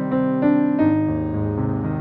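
Background piano music, with new notes and chords coming every quarter to half second.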